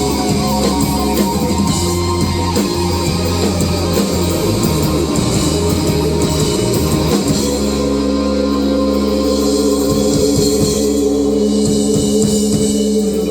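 Live rock band with electric guitars and drum kit playing an instrumental passage, then holding a long final chord from about seven seconds in.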